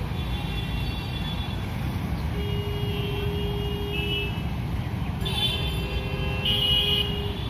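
Dense two-wheeler and auto-rickshaw traffic moving off across a railway level crossing as the barrier lifts: a steady engine rumble with repeated horn toots, a long held horn about halfway through and more horns near the end.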